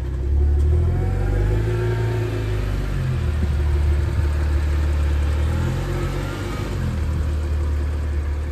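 Car engine running under way with a strong low rumble, its pitch rising and falling twice as it speeds up and eases off.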